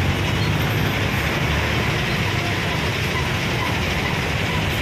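Steady city street traffic: cars, motorcycles and buses running along a busy road, with a low engine rumble under a constant wash of road noise.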